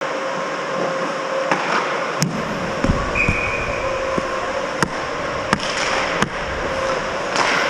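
Ice hockey rink sound: a steady hiss of skating and rink noise with sharp clacks of sticks and puck every second or so, and a brief high tone about three seconds in.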